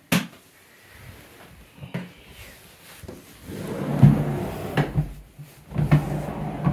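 A sharp knock just after the start, then rustling, bumps and knocks as someone walks through a house entryway with a handheld phone, louder from about halfway in.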